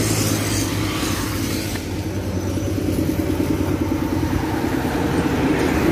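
A motor vehicle engine runs steadily at low revs, and a vehicle passes by on the road in the first second.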